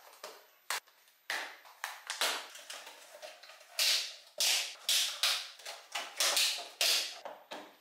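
Water from a kitchen tap running and splashing in short irregular bursts while the kitchen is cleaned up and things are rinsed.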